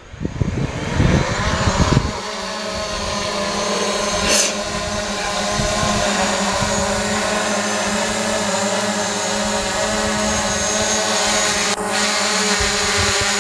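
DJI Mavic Pro quadcopter's motors and propellers spinning up at takeoff, rising in pitch over the first couple of seconds, then settling into a steady hover whine.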